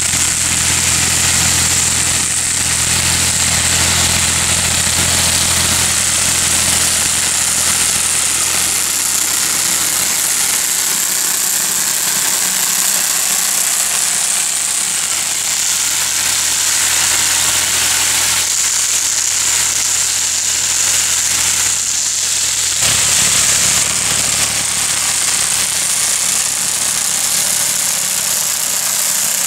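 Tractor engine running steadily while a tractor-mounted rotary orchard weeder's spinning tined rotor churns through grass and soil around the tree trunks, with a steady high-pitched whine over it. The engine note changes about three-quarters of the way through.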